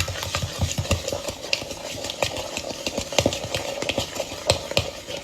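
A wet batter of sugar, melted butter and egg being mixed in a bowl, with a steady stirring sound and many irregular clicks and scrapes of the utensil against the bowl. It stops near the end.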